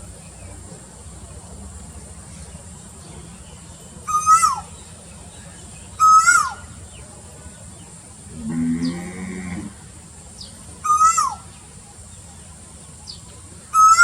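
Asian koel calling: three short, loud notes a few seconds apart, each briefly level and then swooping sharply down in pitch, with another starting right at the end. Near the middle, a lower, drawn-out animal call lasts about a second.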